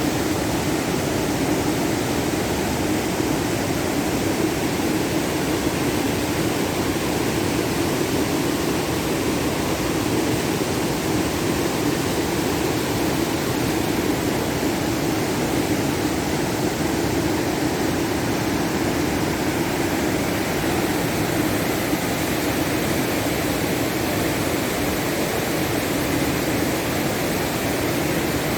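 Steady rushing noise that does not change.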